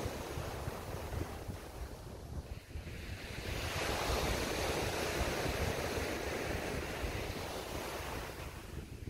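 Small waves breaking and washing up a pebble beach, swelling louder about three and a half seconds in as a wave breaks, with wind buffeting the microphone as a low rumble underneath.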